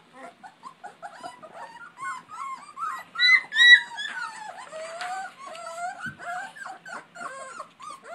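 A litter of three-week-old puppies squealing and whimpering: many short, high-pitched cries overlapping, with a couple of louder yelps about three to four seconds in.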